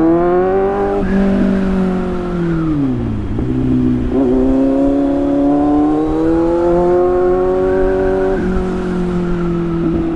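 Motorcycle engine under way, heard from the rider's seat: the revs climb and the pitch steps down at a gear change about a second in. The throttle closes and the pitch falls around three seconds in, then the engine pulls again and holds steady, with another shift near the end.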